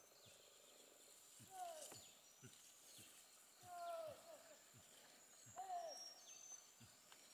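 A bird's short descending call, repeated three times about two seconds apart, over a faint steady high insect drone.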